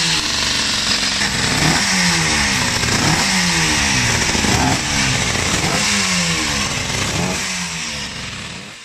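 Suzuki RG500's two-stroke square-four racing engine running and being revved in quick throttle blips, roughly one a second, each falling straight back. The sound fades out near the end.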